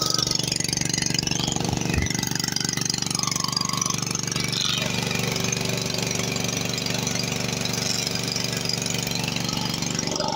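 Endress ESE 30 BS petrol generator running steadily under the load of an electric kettle, with an even engine note. A brief low thump comes about two seconds in.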